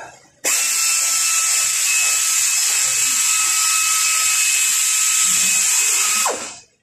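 A small high-speed power tool runs with a steady whine and hiss for about six seconds, then spins down and stops.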